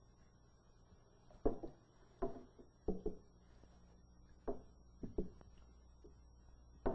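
Irregular splashes and knocks, about five in all, as a net holding an electric eel is lowered into a glass tank of water. A low steady hum from the old film soundtrack runs underneath.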